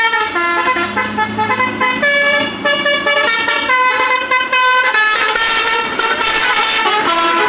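Basuri 'telolet' multi-tone horn playing a loud tune, its clear notes stepping from pitch to pitch two or three times a second.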